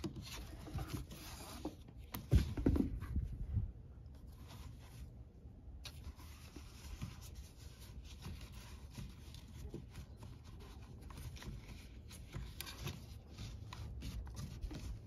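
Cam strap webbing rubbing and sliding as it is tied off around itself on the roof-rack crossbar, with scattered soft handling clicks and a louder bump a couple of seconds in.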